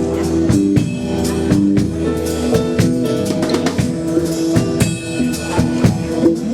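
Live band playing an instrumental passage: a drum kit keeps a steady beat under guitar.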